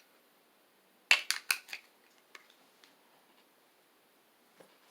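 Four or five sharp clicks in quick succession about a second in, then a few faint taps, from handling a small device whose batteries have gone dead.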